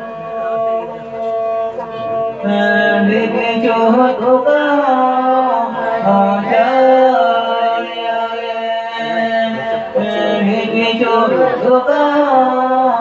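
Folk singing by women's voices over a bowed fiddle that holds long steady notes; the voices come in about two and a half seconds in, in long drawn-out phrases.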